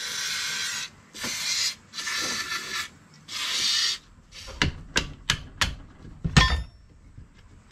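Four short bursts of aerosol spray from a WD-40 can, hissing onto the pistons of a two-stroke outboard's crankshaft assembly. Then a handful of sharp mallet taps on the crankshaft assembly, the loudest near the end and ringing briefly.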